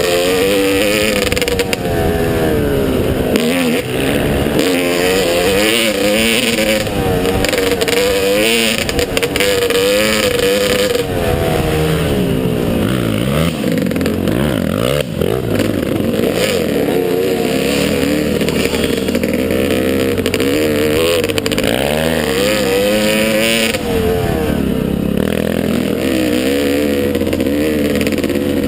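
Motocross motorcycle engine revving, its pitch rising and falling over and over with the throttle.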